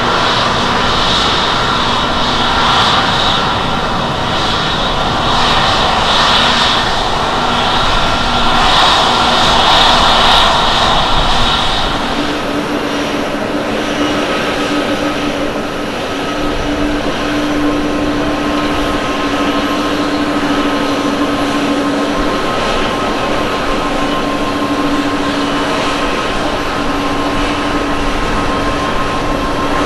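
Boeing 767-300ER's jet engines at takeoff power as it climbs out: a loud, rushing jet noise with a strong hiss. About twelve seconds in this gives way to a Boeing 787-9's GEnx turbofans at takeoff thrust on the takeoff roll: a steadier sound with a held low drone and a higher whine.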